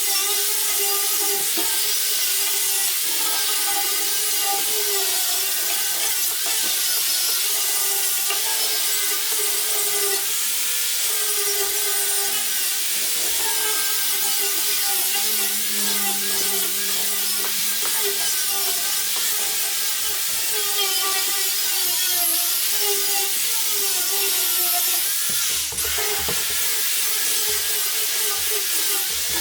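A power tool running continuously, a strong hiss over a wavering whine whose pitch drifts slightly as it is worked, with a brief dip about three-quarters of the way through.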